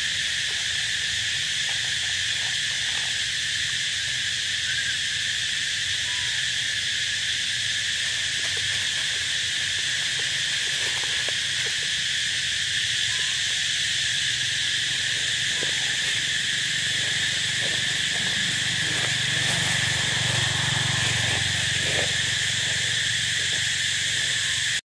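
Steady, high-pitched insect chorus droning without a break, over a low hum, with a few faint short sounds now and then.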